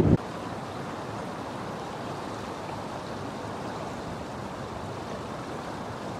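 Steady, even rush of fast-flowing floodwater.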